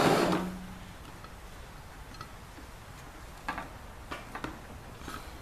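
A rustle of handling dies away in the first half second, then a few scattered light clicks and taps as plastic tubing is handled and pushed onto the steam vent of an aluminium pressure cooker lid.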